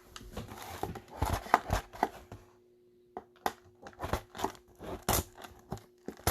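Plastic shrink wrap on a Topps Chrome mega box being cut with a knife and torn off, crinkling in a dense run of crackles. After a short lull about two and a half seconds in, scattered sharp clicks and rustles follow as the wrap and box are handled.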